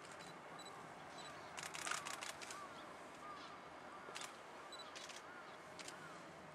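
Camera shutters clicking, singly and in quick bursts, with a dense run of rapid clicks about two seconds in and more near the end. Faint short chirps repeat between them.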